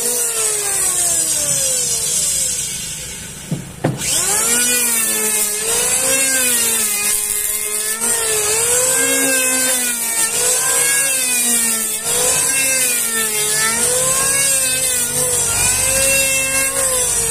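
Electric hand planer's motor running as it shaves a wooden beam, with a strong high hiss of cutting. Its whine sinks over the first few seconds, jumps back up about four seconds in, then dips and recovers about once a second as the blades bite into the wood on each pass.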